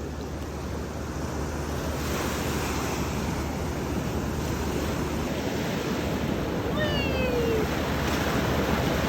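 Atlantic ocean surf breaking and washing ashore, a steady rushing that slowly grows louder. A short falling cry sounds briefly about seven seconds in.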